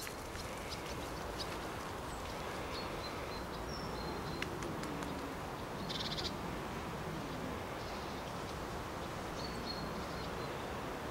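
Faint bird calls, a few short high chirps and whistles, over a steady outdoor background hiss.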